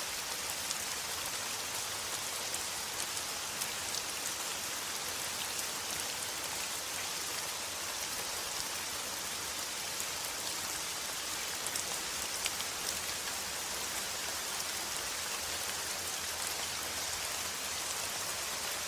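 Heavy rain falling steadily, an even hiss with scattered sharp drop hits.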